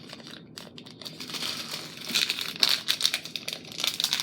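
Packaging crinkling and crackling as it is handled by hand, growing louder and busier about halfway through.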